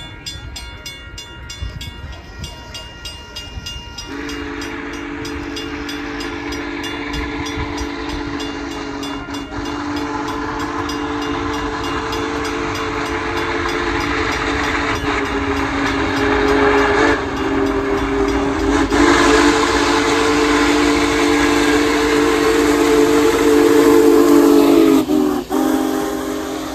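Union Pacific 4014 "Big Boy" steam locomotive's chime whistle sounding a long, nearly unbroken blast from about four seconds in, over the rumble of the approaching locomotive. It grows louder as the engine nears, then drops in pitch as it passes and cuts off near the end.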